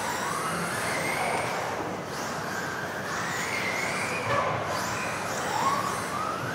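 Electric motors of several 1:10 off-road RC buggies whining, with overlapping pitches that rise and fall as the cars accelerate and brake around the track.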